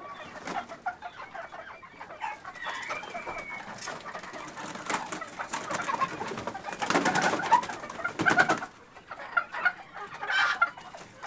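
Chickens in a barn clucking and murmuring, with a loud flurry of flapping and scuffling from about seven to nine seconds in as birds are grabbed by hand from their perch, and a shorter burst near the end.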